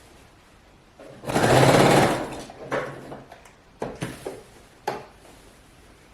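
Electric sewing machine stitching: a loud run of about a second of rapid needle strokes, then a few short bursts of stitching, then it stops.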